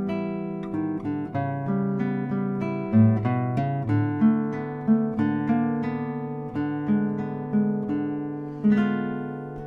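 Solo acoustic guitar playing a slow phrase of plucked single notes over a bass line. The last chord, struck near the end, is left to ring and fade. It is a test recording made with an LRM-2b ribbon mic paired with a DPA 2011C condenser.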